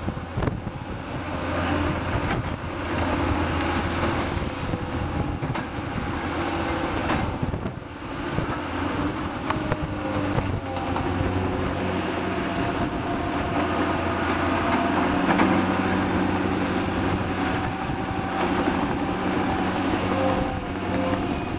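Diesel engines of tracked excavators and a bulldozer working in the cutting below. They make a steady low hum, with engine notes that shift in pitch as the machines load up and move.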